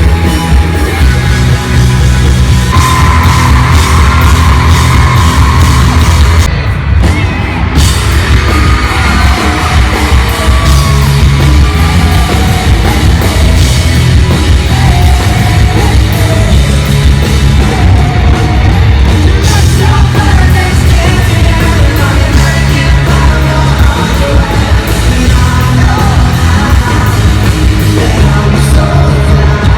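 Live rock band playing loud through a large hall's PA, with a singing voice and a crowd yelling and singing along.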